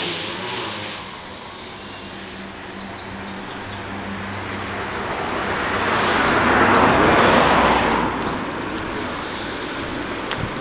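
Road traffic: a car passes by on the street, its tyre and engine noise building to a peak about two-thirds of the way through and then fading. A low engine hum sits underneath in the first half.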